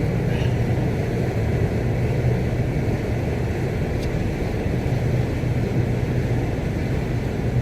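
Steady low drone of a ferry's engines, an unbroken hum with no change in pitch.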